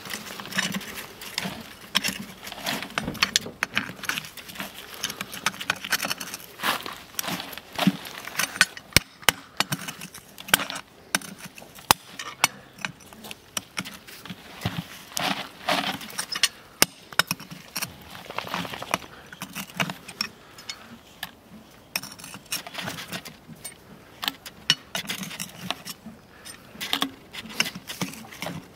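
Farrier's pincers levering a steel horseshoe off a hoof. The sound is an irregular run of sharp metallic clicks, creaks and scrapes as the shoe and its nails are worked loose.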